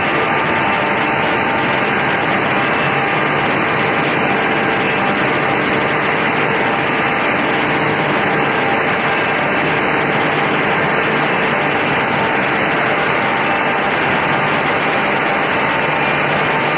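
Homag KL 26 Optimat edgebanding machine running: a steady, even mechanical rush with a few faint steady hum tones, unchanging throughout.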